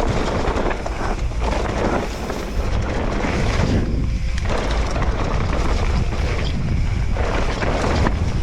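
Wind buffeting the microphone over a continuous low rumble, easing briefly about four seconds in.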